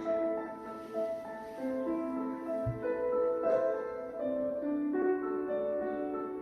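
Slow instrumental piano music, with held notes changing every half second or so.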